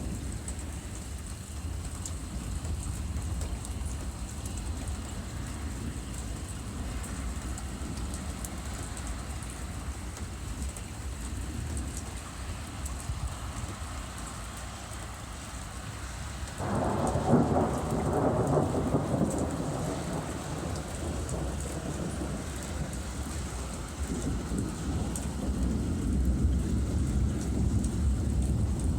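Thunderstorm: steady rain with low rolling thunder. A little over halfway through, a sudden loud thunderclap breaks in and rolls on for several seconds, and another low rumble builds near the end.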